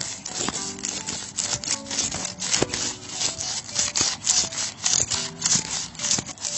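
A hand saw rasping back and forth in quick, even strokes, about three a second: sawing.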